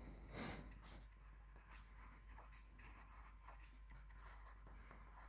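Faint scratching of a pen writing, in short irregular strokes over near silence.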